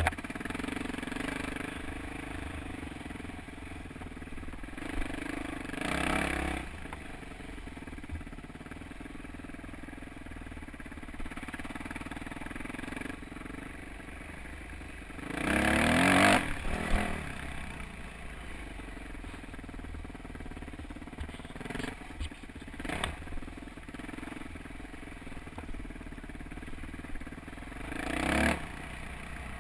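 Yamaha YZ426F four-stroke single-cylinder dirt bike engine running at low revs on a rough trail, with several short louder bursts of throttle; the loudest, about halfway through, is a rev that climbs and drops back.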